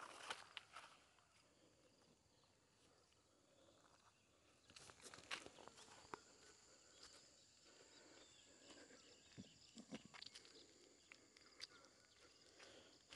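Near silence: faint footsteps and rustling of dry grass and leafy vines underfoot, in scattered soft crunches. A faint steady high-pitched whine comes in about five seconds in.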